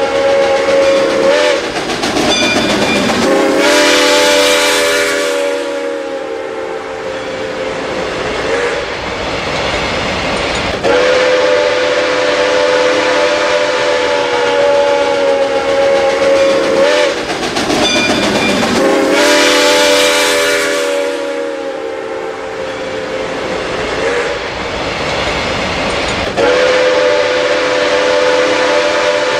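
Steam locomotive whistle sounding a series of long chord blasts, each several seconds long with short breaks between, over the steady noise of the engine and the freight train running.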